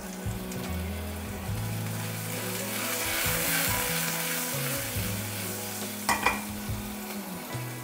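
Crushed garlic, capsicum and ginger sizzling in hot oil with fresh soy sauce in a stainless steel pan, which is shaken by its handle; the sizzle swells in the middle. A couple of sharp metal clinks about six seconds in.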